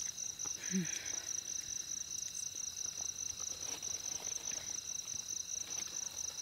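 Night insect chorus: a steady high trill with a faster pulsing note above it, going on without a break. A brief short voice sound about a second in.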